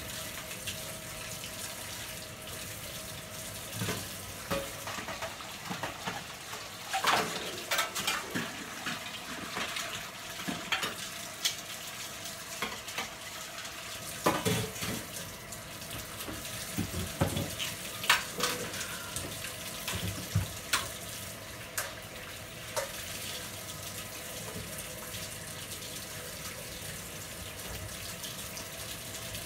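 Kitchen faucet running steadily into a stainless steel sink while things are washed, with scattered clinks and knocks of items against the sink, busiest in the middle stretch.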